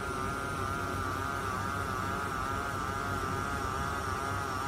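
Electric massager motor running with a steady, slightly wavering hum.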